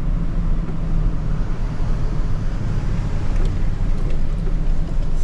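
Steady engine and road noise of a car driving slowly, heard from inside the cabin, with a low hum.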